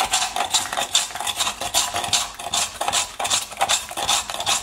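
Hand-held metal ice shaver scraped quickly back and forth across a block of ice, shaving it. The strokes make a rasping scrape, about three a second.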